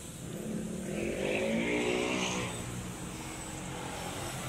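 A motor vehicle driving past, its engine note growing loudest about two seconds in and then fading as the pitch bends.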